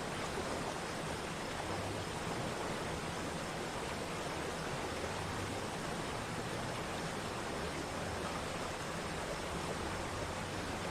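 Waterfall's falling water rushing steadily, an even wash of noise that does not change.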